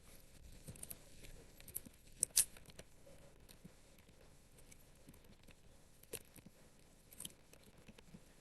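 Faint, scattered clicks at a computer while files are copied, with a sharp pair about two seconds in and single clicks near six and seven seconds.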